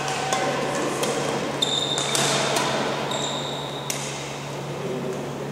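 A doubles badminton rally: several sharp pops of rackets hitting the shuttlecock. Twice a high squeal of shoes skidding on the court floor lasts about half a second.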